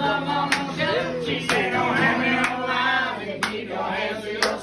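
Two acoustic guitars playing with hand claps keeping the beat, about one clap a second, and voices over them.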